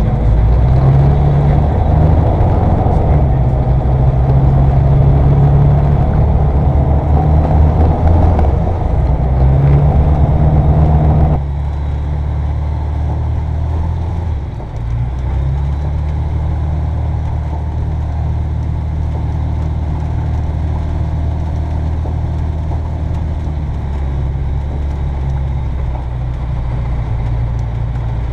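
Rotax engine of an Aerodreams Land Africa ultralight running steadily while the aircraft taxis, heard from inside the cockpit. About eleven seconds in the sound drops suddenly to a quieter, even engine drone.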